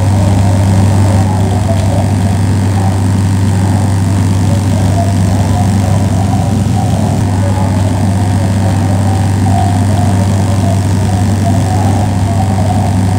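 Loudspeaker of a liquid-feedback sound installation playing a steady, loud low hum with a grainy, fluttering texture above it. The sound is generated from a camera's reading of the liquid pooled on the speaker cone and drives the ripples it reads, a closed feedback loop.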